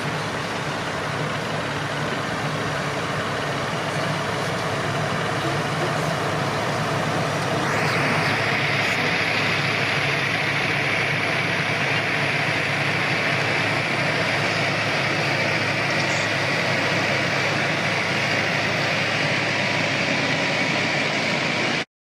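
New Holland tractor engine running steadily while the tractor pulls a plough along the furrow. It gets louder about eight seconds in and cuts off suddenly just before the end.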